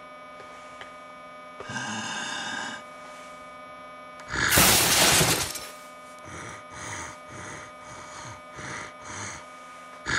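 Sound effects over a steady low drone: a short ringing clink about two seconds in, then a loud crash-like burst of noise lasting over a second, followed by rhythmic scraping strokes about two a second.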